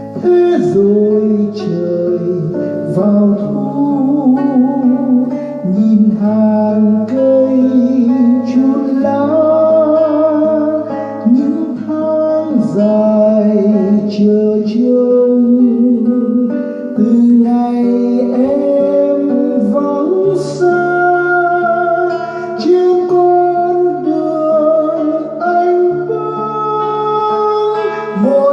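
Music: an instrumental passage of a Vietnamese ballad, with guitar playing under a melodic lead line and sustained bass notes.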